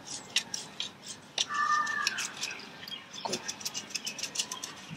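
Old toothbrush scrubbing a greasy metal chimney filter grille coated in baking soda and vinegar paste: a series of short scratchy brush strokes. A brief high tone sounds about a second and a half in.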